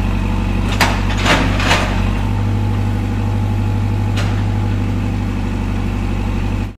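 Caterpillar wheel loader's diesel engine running with a steady low drone, with a few short clatters about a second in and again about four seconds in as the loader tips a bucketful of gravel onto a pile.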